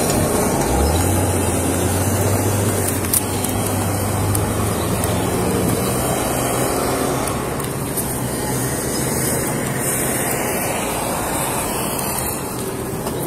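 Roadside traffic noise with a motor vehicle engine running close by; its low hum comes in about a second in and fades after several seconds. A single brief knock a few seconds in.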